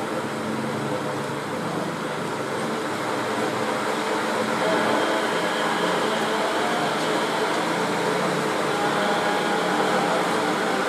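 Steady mechanical whir and hiss, like a running fan or machinery, growing a little louder about four seconds in.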